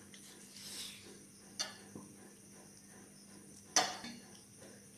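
A metal spoon clinking against dishes while serving rice, twice: a light clink about one and a half seconds in and a louder one near four seconds.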